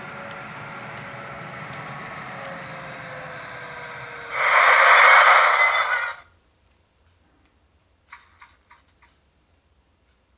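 Sound-fitted model Class 73 locomotive in electric mode: a steady running sound with a motor whine falling in pitch as the train slows to a stop. A loud hiss with high squealing tones follows for about two seconds and cuts off suddenly, then a few faint clicks.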